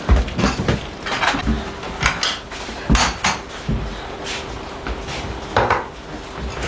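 China crockery and cutlery clinking and knocking as tea and cake are served: a string of separate sharp clinks spread over several seconds.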